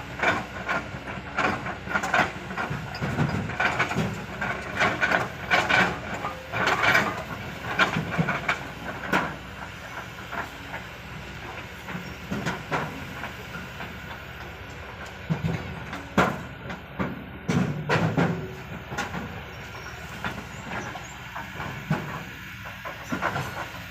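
Heavy machinery running with repeated loud, irregular knocks and clatter of rock, thick in the first ten seconds and sparser later.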